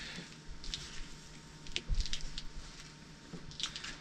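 Hands pressing and rubbing a black foam sleeve onto a drain fitting on a plastic cooler: soft squishing and rubbing with scattered light clicks, and a dull knock about two seconds in.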